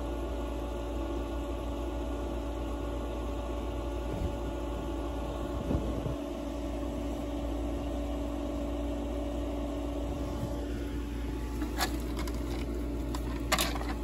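Steady mechanical hum of running pool equipment, with a low rumble and a constant tone. Two sharp clicks come near the end as the heat pump's control panel housing is handled.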